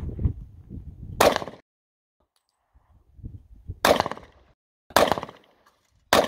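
Four handgun shots fired one at a time, the first about a second in and the other three over the last three seconds, with wind buffeting the microphone at the start.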